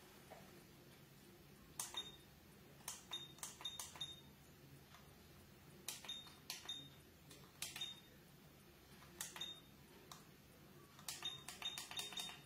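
Buttons on a video camera being pressed: short sharp clicks, many with a brief high electronic beep, coming in irregular clusters and most crowded near the end.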